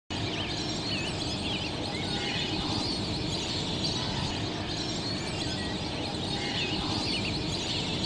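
Many birds calling, short chirps and whistles repeating throughout, over a steady low background rumble of outdoor noise.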